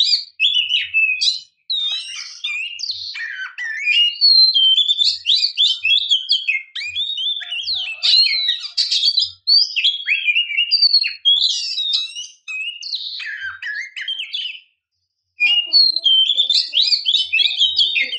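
Oriental magpie-robin (kacer) singing: a fast, varied run of clear whistles and chirps, with short pauses about a second and a half in and near the end.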